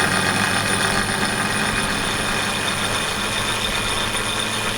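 Steady engine hum with a loud rushing noise over it.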